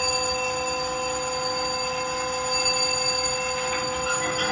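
Steady electric alarm sounding in the engine room of an Alco FA-1 diesel locomotive while its diesel is still shut down before start-up, one continuous multi-pitched ring or buzz.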